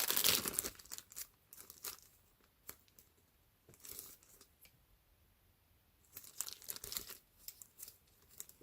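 Plastic squishy packaging crinkling and rustling as it is handled, in bursts at the start and again in the second half, with a quiet pause in between.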